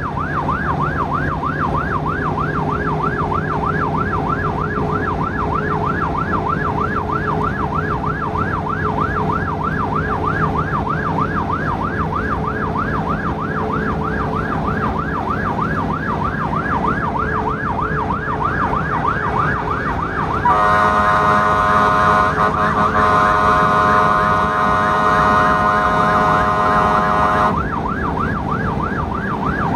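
Emergency vehicle siren on a fast yelp, sweeping up and down about three times a second, heard from inside a moving vehicle with its engine humming. About two-thirds of the way through, a horn sounds over the siren for about seven seconds, then the yelp carries on alone.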